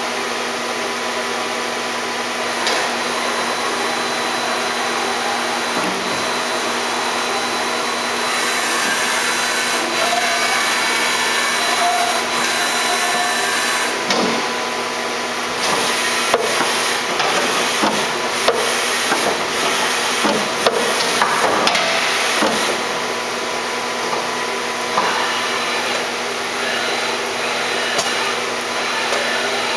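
Steady mechanical drone of running machinery with a few thin steady tones in it, broken in the middle stretch by a string of sharp metallic knocks and clicks.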